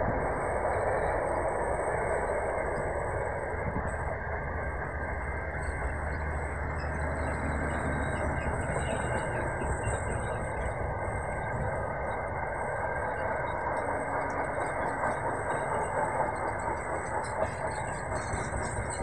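Intermodal freight train's container wagons rolling past on steel wheels, a steady running noise of wheels on rails with a thin high tone above it. Sharper clicks come in near the end.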